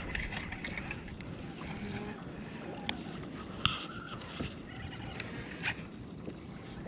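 Water and wind noise on a fishing kayak at sea, with a few sharp clicks and knocks a few seconds in, during the fight with a hooked fish.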